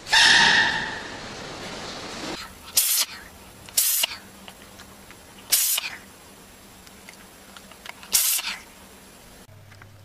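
An animal sneezing again and again: four short, sharp sneezes a second or two apart, after a louder, longer hissing burst at the start.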